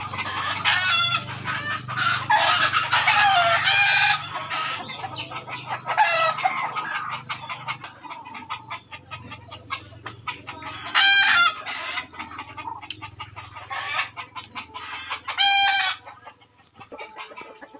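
Several roosters crowing and clucking, many calls overlapping at first, then single crows about eleven and fifteen seconds in.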